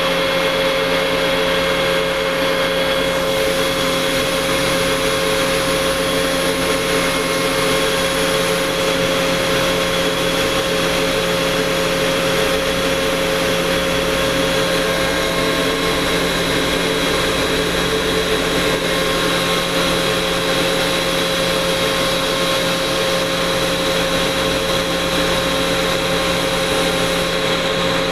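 Industrial screw air compressor machinery running: a loud, unchanging hum with a steady high whine.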